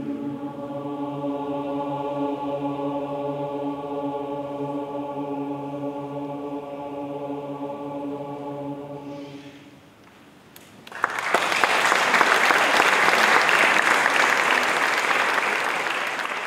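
Mixed a cappella choir holding a final sustained chord, which fades out about nine seconds in. After a brief hush, the audience breaks into loud applause.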